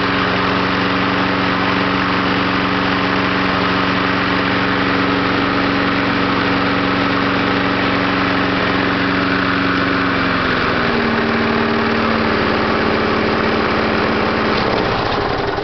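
1995 Power Pro push mower's 5 hp Briggs & Stratton single-cylinder engine running steadily, its clogged air filter freshly blown clean. About two-thirds of the way through the engine speed drops a step, and near the end it winds down.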